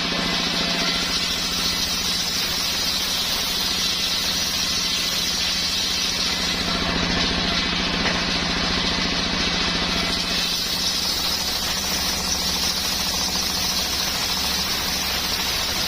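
Home-built engine-driven circular saw rig running steadily while sawing coconut-palm timber: a constant engine hum under a loud hiss from the blade, shifting slightly about two-thirds of the way through.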